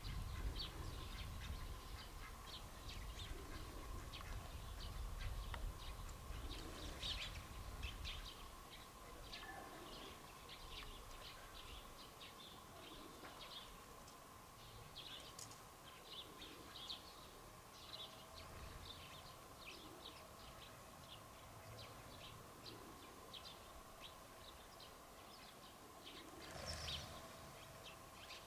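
A flock of house sparrows chirping, with many short, high chirps overlapping at an uneven pace. A low rumble sits under the first third.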